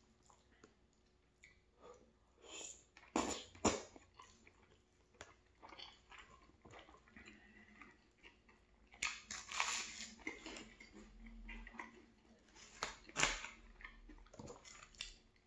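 Close-up eating sounds: chewing and biting, with a run of crunching about nine seconds in as buttered toast is bitten. A few sharp clicks stand out, the loudest near the start and again near the end.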